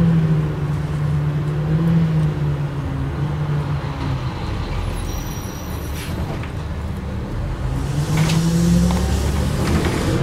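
Bus engine running as the bus drives along, heard from inside the cabin: its note falls over the first few seconds and rises again about eight seconds in as the bus picks up speed.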